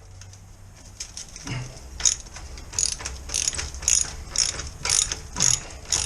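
Hand socket ratchet with a deep socket tightening a bolt. From about two seconds in, each back-swing gives a short burst of pawl clicks, about two strokes a second.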